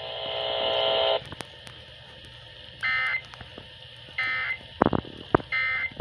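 RadioShack weather radio sending the Emergency Alert System end-of-message data bursts: three short, identical warbling digital squawks about a second and a half apart. Before them, a steady buzzing tone stops abruptly about a second in, and two low thumps come near the end.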